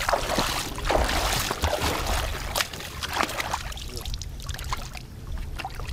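Shallow water splashing and sloshing as a man wades in and lowers a carp into the water, loudest in the first three seconds and settling to quieter lapping after.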